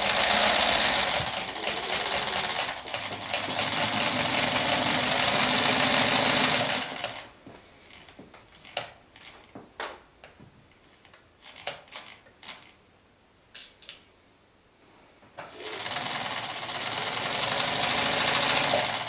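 Chaika-2 sewing machine running with its new metal gear pair meshing, on a test run after the gear was raised to enlarge the contact patch. It runs for about seven seconds and stops. After a few scattered clicks and knocks, it starts again near the end for a few seconds.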